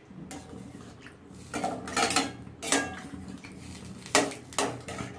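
Flat metal spatula stirring a thin, watery curry in a steel pan, scraping and knocking against the pan in about half a dozen irregular clinks.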